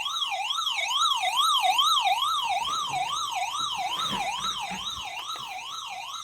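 Electronic siren-style warning tone, its pitch sweeping rapidly up and down about twice a second, slowly fading.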